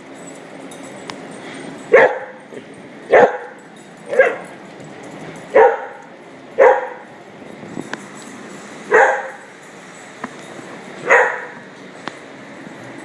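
Small dogs barking: seven sharp single barks, spaced about one to two and a half seconds apart.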